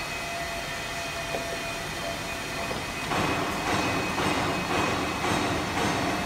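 Automatic napkin folding and packing machine: a steady machine hum with a thin whine, then about three seconds in it starts cycling, a louder rhythmic mechanical noise at about two strokes a second.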